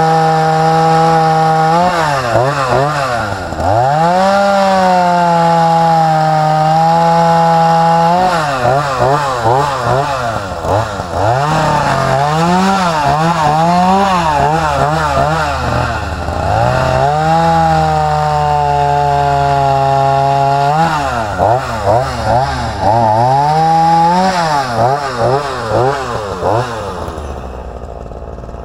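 Ryobi 38cc two-stroke gas chainsaw running at full throttle while cutting through a fallen tree branch. Its pitch dips as the chain bites into the wood and swings up and down as it is revved between cuts. Near the end it drops back to idle.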